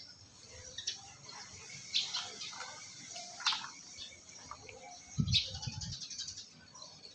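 Boiled snail shells being handled and eaten by hand on a plate: scattered clicks of shell on shell and plate, a louder knock about five seconds in, and short sucking sounds.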